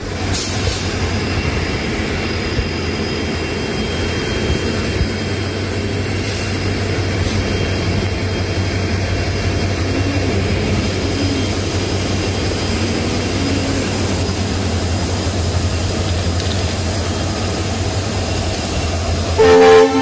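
Diesel train rumbling steadily under the rush of a large waterfall, with a loud locomotive horn blast near the end.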